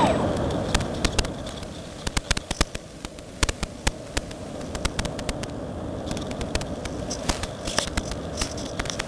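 The Reely Phönix model glider's electric motor winds down with a falling pitch right at the start, the throttle cut for a glide. What remains is a steady rush of airflow, fading over the first few seconds, with many scattered crackles and clicks.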